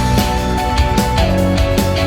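Background rock music with lead guitar: a held high guitar note that bends down a little past halfway, over a steady drum beat.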